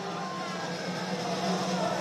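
Stadium crowd of football supporters cheering, a dense mass of many voices, with a steady low hum underneath.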